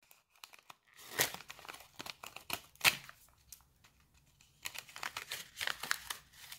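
A foil-lined paper tea bag sachet being torn open and its wrapper crinkled by hand, in two bouts of crackling rustle: one about a second in and one near the end.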